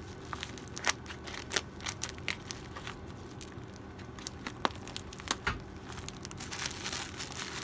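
Scissors cutting along the edge of a plastic bubble mailer, the plastic crinkling as it is handled and pulled open, with scattered sharp clicks.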